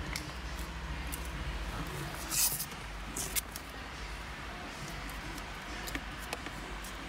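A strip of black electrical tape being pulled off the roll and torn, with two short tearing sounds about a second apart around two and a half seconds in. Small clicks from hands handling wires, over a low steady hum.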